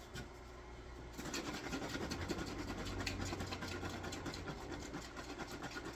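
Rapid, continuous scratching and rubbing, starting about a second in.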